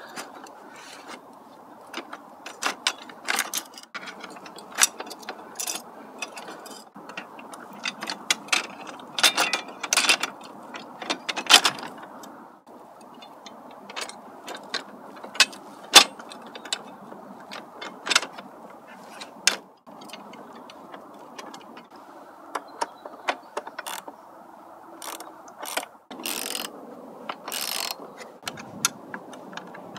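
Socket ratchet clicking in quick runs as bolts are turned, with scattered sharp metal clicks and knocks from parts being handled, over a steady background noise.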